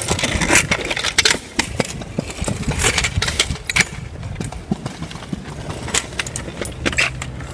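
Kick scooter rolling over pavement, its small hard wheels and deck rattling with a string of irregular sharp clicks and knocks over a low rumble.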